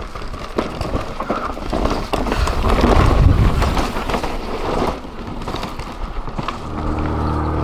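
Mountain bike riding over rough, rocky ground: tyres crunching and the bike clattering with many sharp knocks and rattles, loudest about three seconds in. Near the end a steady low hum starts.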